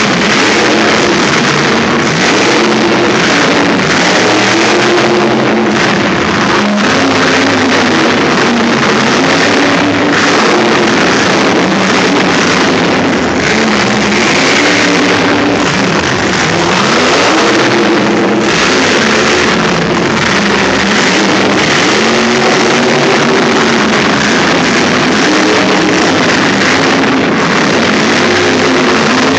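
Monster truck engine revving hard, its pitch rising and falling over and over as the truck drives, climbs and crushes cars.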